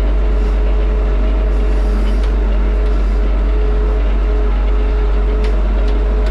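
Tractor engine and drivetrain running steadily under way, heard from inside the cab: a heavy low rumble with a steady whine.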